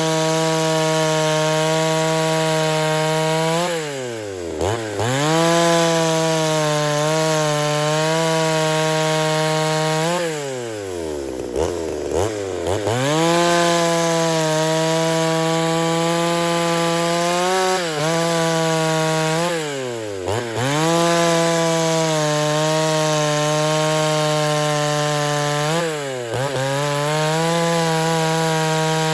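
Two-stroke chainsaw, a rebuilt Poulan Countervibe 3400, running at full throttle through wood, its pitch held steady during each cut. Four times the engine speed falls away and climbs back as the throttle is let off and reopened between cuts.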